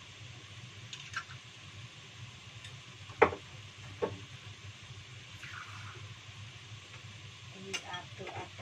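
Steady hiss and low hum of a gas burner heating a lidded wok steamer, with a few sharp clicks and knocks, the loudest just over three seconds in.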